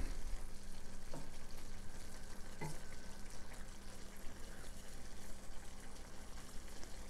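Green beans and tomatoes cooking in a steel pot with a steady crackling hiss, stirred with a wooden spatula at first, with a couple of light knocks in the first three seconds.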